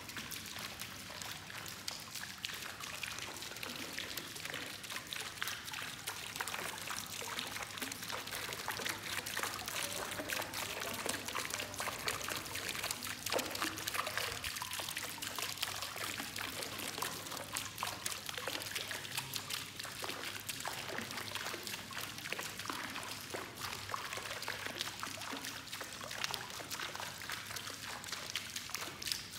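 Water splashing and trickling steadily.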